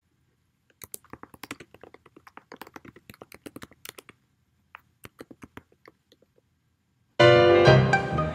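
Typing sound effect: rapid key clicks in two runs with a short pause between them. Loud music with bowed strings starts suddenly about a second before the end.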